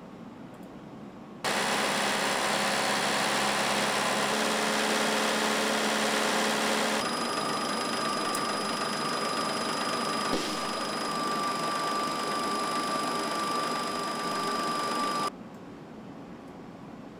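Engine running at a steady speed on a test-bench dynamometer, cutting in suddenly about a second and a half in. About seven seconds in the sound changes to a noisier run with a steady high whine, then cuts off abruptly near the end.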